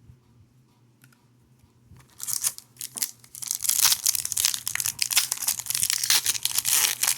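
A foil trading-card pack wrapper being torn open and crinkled, starting about two seconds in as a loud, continuous crackling rustle.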